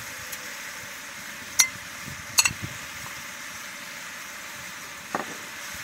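Large pot of onions, tomatoes and whole spices cooking in butter and oil on an outdoor stove: a steady hiss, with a few sharp clicks.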